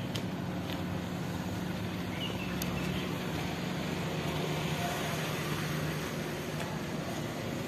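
Town street ambience: a steady hum of traffic and engine noise, with a low drone that fades out about six seconds in.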